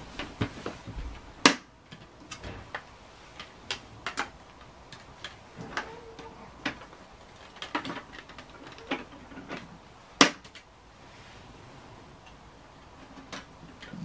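Scattered clicks and knocks from a Henry hoover being handled and moved over the carpet, with two sharper knocks, one about a second and a half in and one about ten seconds in.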